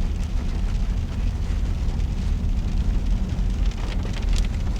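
Steady low rumble of a car driving in heavy rain, heard from inside the cabin, with rain hitting the car's body.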